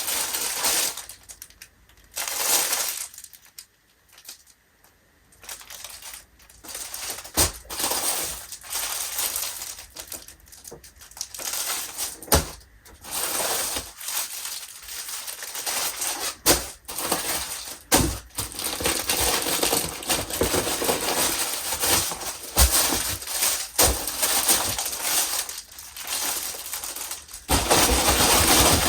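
Packaging rustling and crinkling as a parcel of clothing is opened and unpacked by hand, with scattered sharp clicks and knocks throughout.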